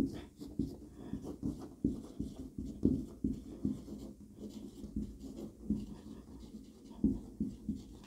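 Whiteboard marker writing on a whiteboard: a quick run of short, irregular strokes as words are written out.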